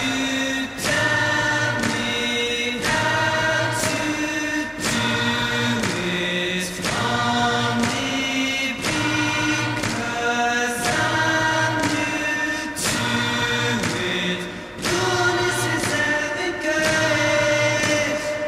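Background music of choral singing: voices holding sustained chords that move to a new chord about once a second.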